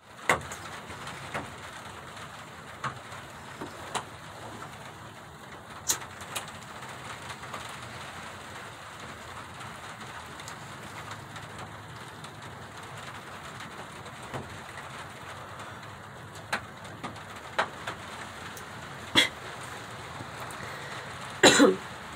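Heavy rain falling steadily on a wooden shed, with scattered sharp ticks throughout. Near the end a person coughs once, briefly and loudly.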